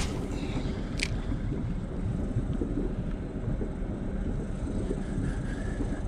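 Steady low rumble of wind buffeting the camera microphone, with two sharp clicks about a second apart at the start.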